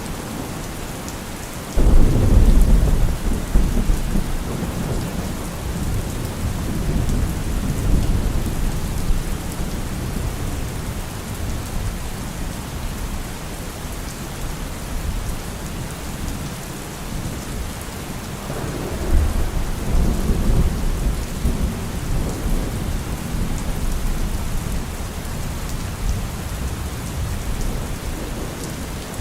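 Steady rain with thunder: a loud low rumble breaks in suddenly about two seconds in and trails off over several seconds, and a second rumble swells about two-thirds of the way through.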